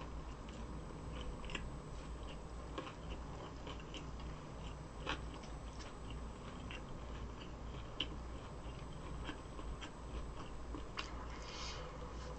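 Close-miked mukbang eating sounds: chewing with many small, soft, wet mouth clicks, and a brief slurp-like hiss near the end.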